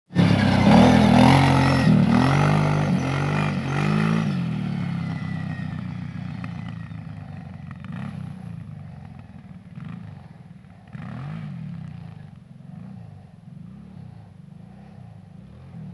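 Kawasaki KFX700 quad's V-twin engine revving hard close by, its pitch rising and falling several times, then fading as the quad rides off. Fainter rises in revs are still heard in the distance.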